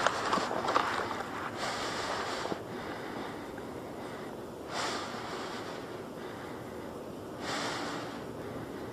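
Breathing close to the microphone: three slow, hissy breaths a few seconds apart over a faint background hiss.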